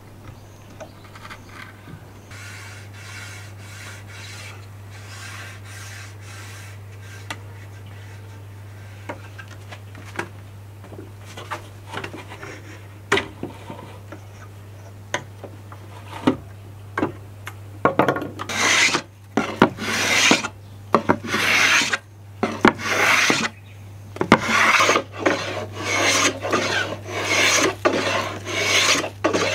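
A hand tool scraping along a wooden bow limb in quick back-and-forth strokes, taking wood off the limb. The strokes are faint and scattered at first, then loud and regular, about one and a half a second, from a little past the middle on.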